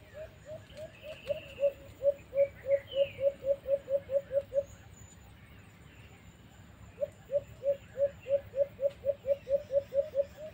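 Dove-like cooing call: a run of short low notes repeated about four to five times a second and quickening, breaking off for about two seconds and then starting again. Faint higher chirps of other birds in the first few seconds.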